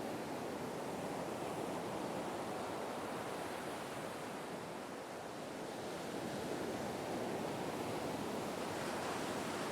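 Ocean surf washing steadily on a beach. It eases a little about halfway through and then swells again.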